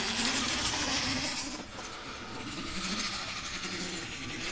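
Plastic wind-up toy vehicle's spring motor whirring as the car runs along on its wheels, slowly fading as the spring unwinds.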